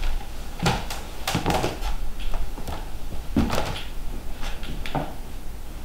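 A door and footsteps in a small room as someone walks in: a handful of separate knocks and thuds, roughly a second or two apart.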